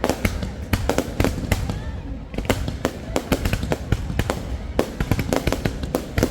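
Fireworks going off in quick, irregular succession: many sharp bangs and crackles, several a second, over a steady low rumble.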